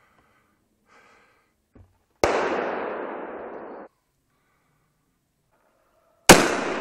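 Two hunting rifle shots about four seconds apart, each a sharp crack followed by a long fading echo through the woods that cuts off suddenly; the second shot is the louder.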